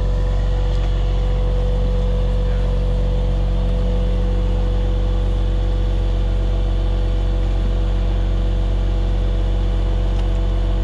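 Septic pumper truck running steadily, a constant drone as its vacuum pump draws sewage out of the septic tank through a suction hose.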